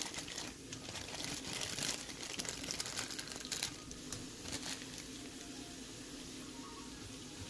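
Plastic zip-lock bag crinkling and crackling as garlic-ginger paste is broken off and squeezed out of it, over a soft sizzle of carrot strips frying in oil. The crinkling dies down a little past halfway, leaving the gentle sizzle.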